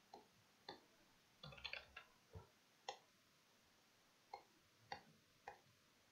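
Faint computer mouse clicks, about ten of them at irregular intervals, as folders are clicked open in a file dialog.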